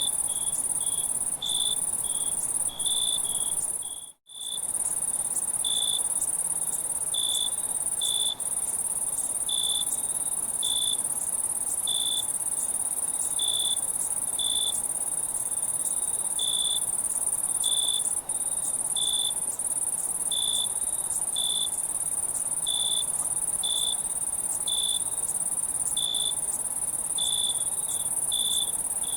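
Crickets chirping on a summer night: a steady high trill under a lower chirp that repeats about once a second. The sound cuts out for an instant about four seconds in.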